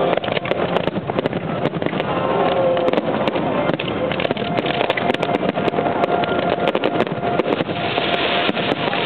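Aerial fireworks display: many shells bursting in quick succession, a dense run of pops and crackles over a continuous rumble.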